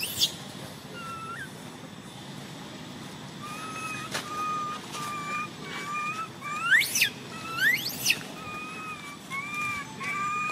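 Baby macaque crying: a run of thin, whistle-like coos, some held level and some sweeping sharply upward in pitch, the loudest two rising squeals about seven and eight seconds in.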